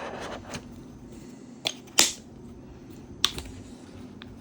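About six sharp clicks, the loudest about two seconds in, from a screwdriver being handled and its bits fitted.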